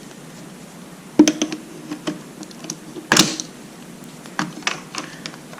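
Pliers and plastic parts clicking and knocking while a wiring connector is worked loose from a tight space. The clicks are irregular, with two sharper knocks about a second in and about three seconds in.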